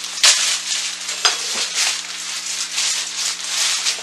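Thin plastic bread bag crinkling and rustling as it is opened and a stack of sliced bread is pulled out, with a couple of sharp clicks near the start.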